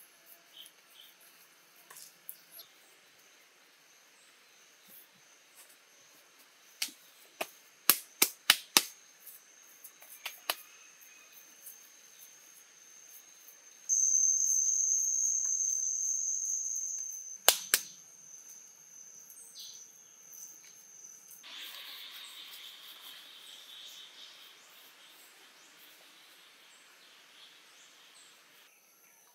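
Forest insects droning in a steady high tone, swelling loud for about three seconds midway through. A quick run of sharp clicks comes about seven to nine seconds in, and one more loud click follows later.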